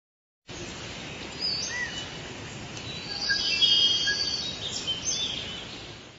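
Forest ambience: a steady hiss with wild birds chirping and calling in short rising and falling notes, starting about half a second in, busiest around the middle and fading out at the end.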